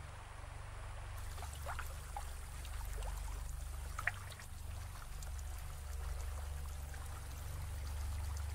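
Running, trickling water over a steady low rumble, with a few short sharp blips, the loudest about four seconds in.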